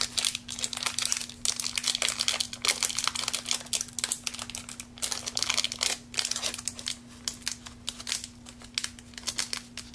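Trading-card booster pack wrapper crinkling and tearing as it is opened by hand, a dense run of fine crackles that thins out toward the end as the cards come out.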